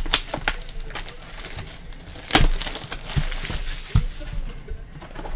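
Clear plastic shrink wrap crinkling and crackling as it is torn off a sealed trading-card box, in a run of irregular sharp crackles. The loudest snap comes about two and a half seconds in.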